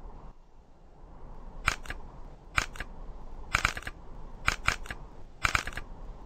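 Animated desk lamps hopping: a series of sharp clicks and clacks about once a second, several of them doubled, starting a little under two seconds in, over a faint low hum.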